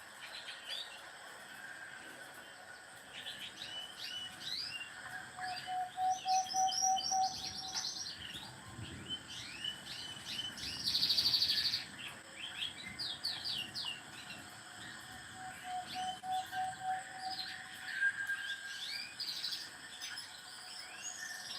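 Samsung Player Star 2 ringtone of recorded birdsong: quick chirps and tweets with a short buzzing trill midway. The same pattern comes round again about ten seconds later as the ringtone loops.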